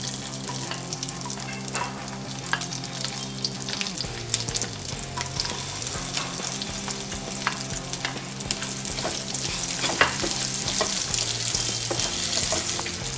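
Chopped onion sizzling as it is tipped into hot oil with whole spices in a kadhai, with many short clicks as pieces drop onto the pan; a spatula stirs it near the end.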